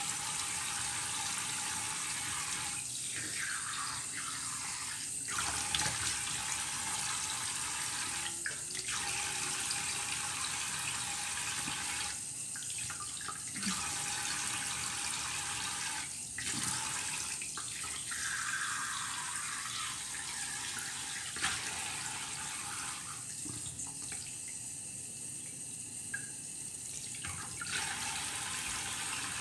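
Tap water running steadily into a sink while a face mask is rinsed off with the hands.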